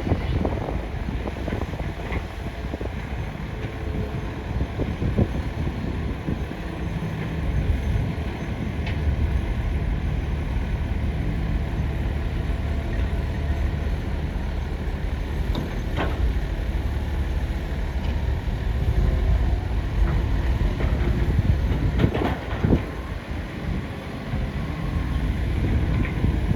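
A hydraulic excavator working: a steady low machine drone, with a few sharp knocks about two-thirds of the way in and again a little later.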